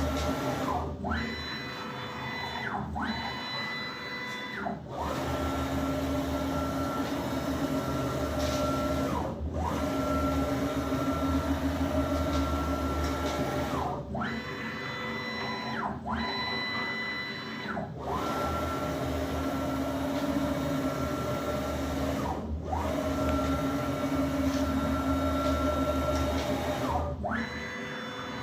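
Closed-loop NEMA 34 stepper motors driving a CNC milling machine's axes through fast test moves. A steady whine glides down in pitch to a brief stop and back up again as each move slows and starts, about a dozen times, with the machine running at high feed for several seconds between stops.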